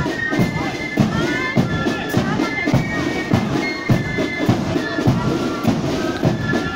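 A marching flute band playing a tune, shrill high flutes carrying the melody over a steady drum beat of about two strokes a second.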